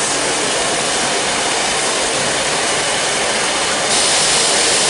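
Steam locomotive moving slowly with its train, giving off a steady hiss of steam that grows louder and brighter near the end.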